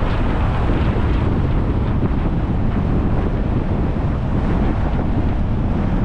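Steady low rumble of a car driving along a road: wind buffeting the dashcam microphone, mixed with road and tyre noise.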